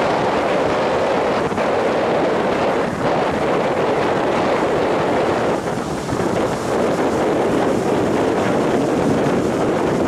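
Rough sea surf breaking continuously on a sandy beach, with strong wind blowing across the microphone. The sound is loud and steady throughout.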